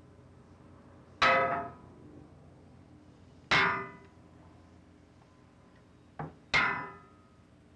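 Hammer blows on heavy metal, each a sharp clang that rings out briefly: three loud strikes about two seconds apart, with a lighter tap just before the third.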